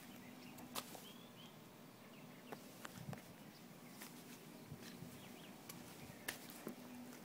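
Quiet outdoor background with a few faint bird chirps and several small, sharp clicks spread through it.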